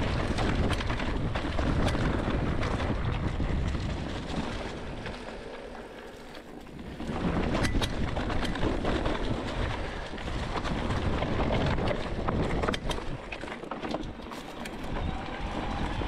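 Electric mountain bike ridden down a dirt trail: wind buffeting the microphone and tyres rolling over dirt and stones, with many sharp clicks and rattles from the bike. The noise eases for a couple of seconds around the middle, then picks up again.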